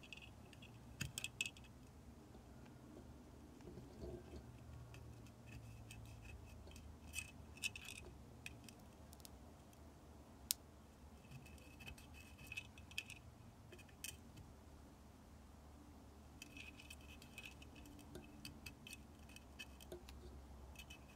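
Faint, scattered small metallic clicks and ticks from a soldering iron and hand tools working on a circuit board while its solder pads are cleaned with desoldering braid, over a low steady hum.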